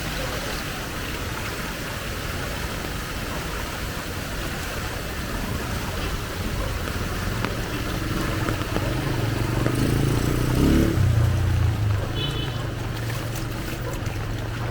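Heavy rain falling steadily, with a motor vehicle passing close by through floodwater; its engine hum builds, is loudest about ten seconds in, then fades.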